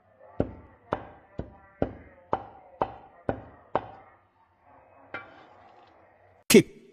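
Heavy cleaver chopping raw pork into mince on a round wooden chopping block: eight sharp chops about two a second, then one lighter one. Loud music cuts in at the very end.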